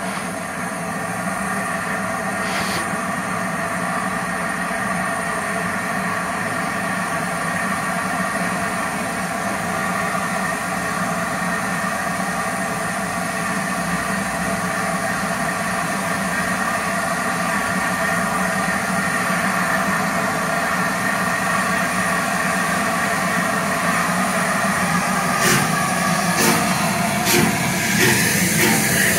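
Bulleid rebuilt Battle of Britain class steam locomotive standing still, giving off a steady hum and hiss. A few sharp clicks come near the end.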